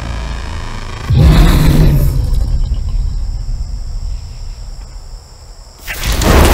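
Horror-film night-forest sound design: crickets chirping steadily, broken by a loud, deep hit about a second in and another loud swell building near the end.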